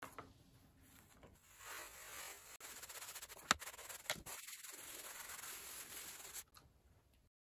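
A clothes iron pressed and pushed over a brown paper bag lying on carpet, the paper rubbing and rustling against the soleplate and the carpet pile. Two sharp clicks about a second apart stand out a little past the middle.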